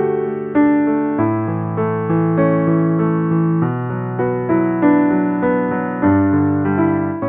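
Slow background piano music: a melody of single struck notes, each fading after it sounds, over held low notes.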